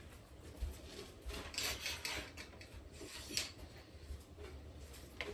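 Handling noise: a few soft rubbing and scraping sounds, the clearest in the middle, as the rifle is moved about.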